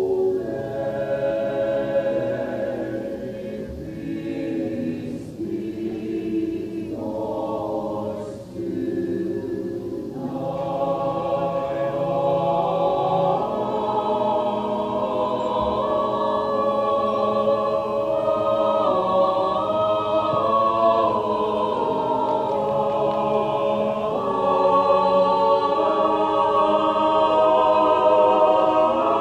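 Mixed choir of female and male voices singing unaccompanied in harmony. It is softer for about the first ten seconds, then swells fuller and louder.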